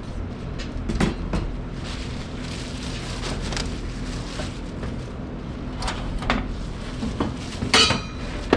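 Oven parts and packaging being handled: scattered short knocks and scrapes, the loudest near the end, over a steady low hum.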